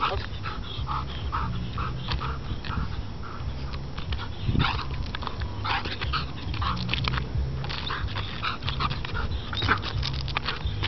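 A dog whining and yipping in short, repeated calls, a few each second, the excited vocalising of a dog with strong ball drive.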